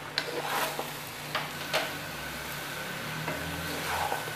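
Wooden spoon stirring macaroni in a metal cooking pot, scraping through the pasta and knocking against the pot's side a few times, mostly in the first two seconds.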